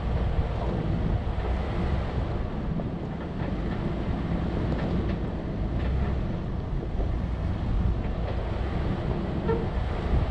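A 4x4 vehicle driving along a rough dirt trail: a steady low rumble of engine, tyres and body, with a few light knocks and wind on the microphone.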